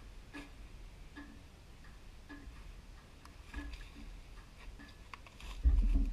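Footsteps on dry grass and dirt, soft and evenly spaced at about one step every three-quarters of a second. Near the end comes a sudden loud low thump right at the microphone, followed by a low rumble.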